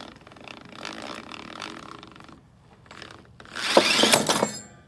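Auto-rewind ratchet strap: the webbing is pulled out of the housing with a rubbing, rattling sound, then, about three and a half seconds in, the spring reel winds it back in a brief, loud zip with a rising whir that stops short.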